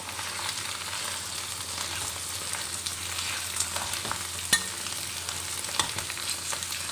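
Ground meat and mushrooms sizzling steadily in hot oil in a steel wok, while a metal spatula breaks up the meat, its edge scraping and clicking against the pan. The sharpest clink comes about four and a half seconds in.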